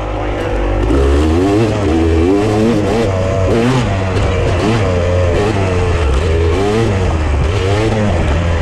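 Off-road vehicle engine being ridden over rough trail, its revs rising and falling again and again as the throttle is worked, over a steady low rumble.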